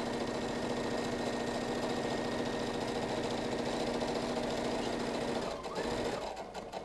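Brother ST150HDH heavy-duty sewing machine running at a steady speed with an even hum, stitching a straight seam through two layers of flannel, then stopping about five and a half seconds in.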